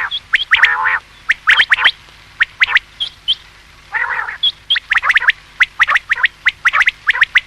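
Common quail calling: quick clusters of short, sharp rising notes, with a lower, rougher note about a second in and again about four seconds in.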